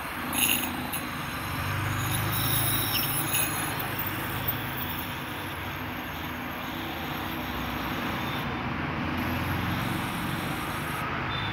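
Dental ultrasonic scaler running with its new handpiece's tip held in a glass of water: a steady hiss with thin high tones, and a short knock about half a second in.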